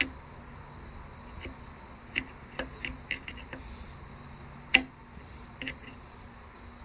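Scattered light clicks and taps as a metal test-light probe and wire connectors are handled on the bench, irregularly spaced, with one sharper click about two-thirds of the way through. A faint steady hum runs underneath.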